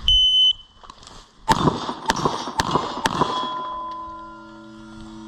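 A shot timer's electronic start beep, then four quick shots about half a second apart, each hitting steel targets, which ring on with several clear tones that slowly fade.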